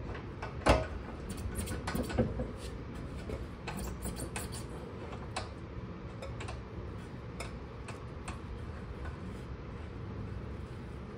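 A hand wrench working a rear suspension bolt: irregular metal clicks and clinks, the loudest one about a second in and a quick cluster soon after.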